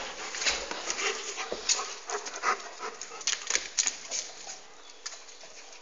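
A Central Asian Shepherd dog shifting about, with irregular soft clicks and rustles that die away about four and a half seconds in.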